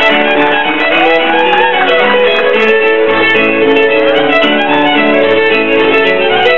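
Live Cape Breton fiddle music: a fiddle plays a quick, continuous tune over piano chording and bass notes.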